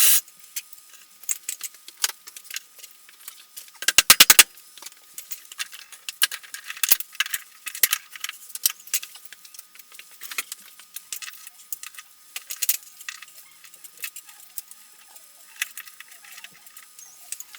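Workshop handling noise, likely metal clamps being handled: scattered clicks and light metallic clattering, with a quick run of about eight loud clicks a little after four seconds in.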